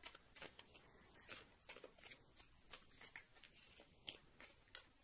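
Tarot cards being shuffled and handled: a string of faint, irregular card clicks and flicks.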